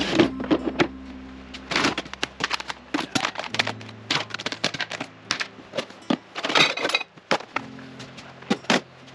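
Kitchenware clattering as things are handled and put away: a utensil drawer opening, then many quick knocks and clinks of dishes, glasses and utensils. Quiet background music with steady low notes plays underneath.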